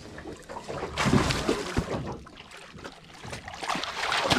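Hooked tuna thrashing and splashing at the water's surface as it is grabbed by hand, in two bouts: about a second in and again near the end.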